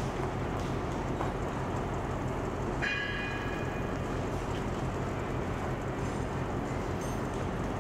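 Steady low hum of a standing diesel train idling at a platform. About three seconds in comes one metallic ring, like a bell struck once, that fades over about a second and a half.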